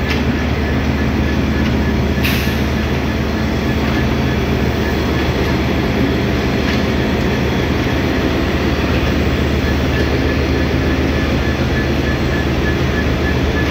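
Sri Lanka Railways M10A diesel locomotive's engine running with a steady low drone as it shunts a string of coupled locomotives slowly past. A single sharp click comes about two seconds in.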